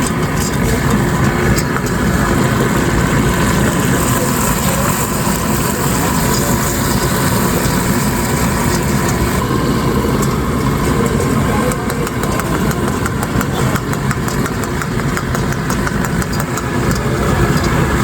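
Busy street noise with motorcycle and other vehicle engines running steadily, and frequent short clicks and clatter on top.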